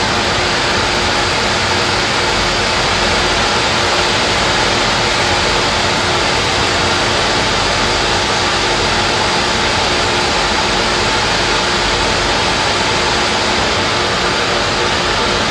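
A miniature flame-heated Stirling engine running at a steady speed, spinning its small propeller: an unchanging mechanical hum with an even hiss over it.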